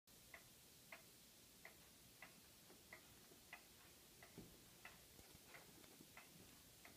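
Faint, even ticking, about three ticks every two seconds, over near silence.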